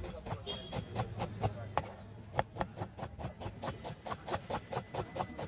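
Kitchen knife rapidly chopping red onions on a plastic cutting board: a steady run of sharp taps, about four or five a second.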